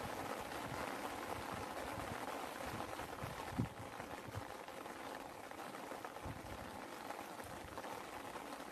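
Steady rain with large drops landing close by as soft, irregular thuds; one drop lands louder a little before halfway.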